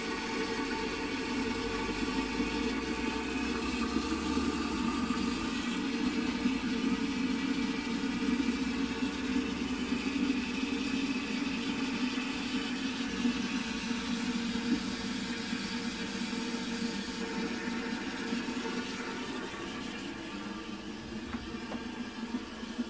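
Failing float valve of a STOM Cardiff 146 cast-iron cistern hissing non-stop as water runs in, with a steady whine over the hiss. It eases off a little near the end.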